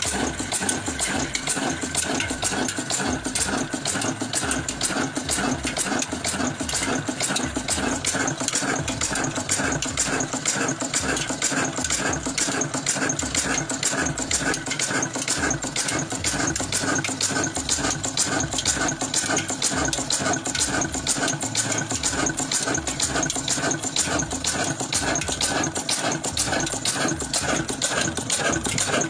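Old stationary diesel engine running steadily at an even, unchanging beat.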